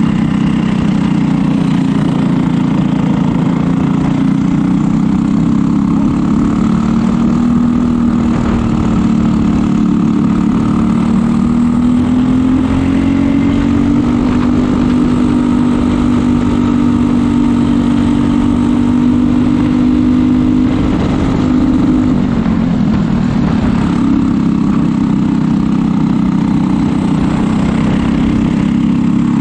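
Briggs & Stratton LO206 single-cylinder four-stroke kart engine running at racing speed, heard onboard. Its pitch climbs over several seconds and holds high, drops about three-quarters of the way through, then climbs again.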